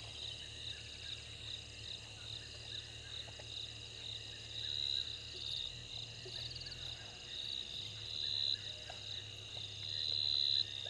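Night chorus of insects such as crickets: a steady high-pitched trilling that swells and pulses in phrases, over a low steady hum.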